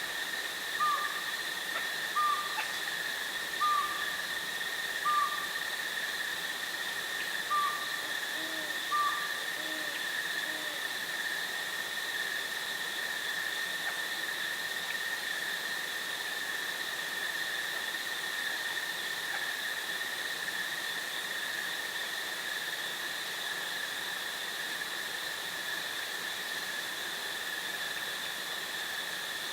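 An owl hoots in a series of short, slightly falling notes, about one every second and a half, over the first ten seconds. A few fainter, lower notes come near the end of the series. A steady high insect trill runs underneath throughout.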